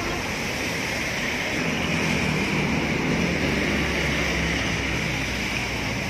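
Steady street noise, a continuous hiss joined about a second and a half in by a low, steady engine-like hum.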